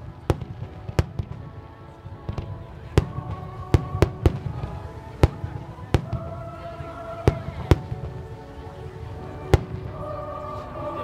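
Aerial fireworks bursting: an irregular string of sharp bangs and cracks, over a low rumble.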